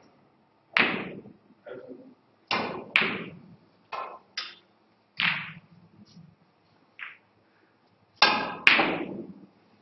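Snooker balls clacking: cue tips striking balls and balls knocking into each other, about nine sharp clicks at irregular intervals, each ringing briefly, with two close together near the end.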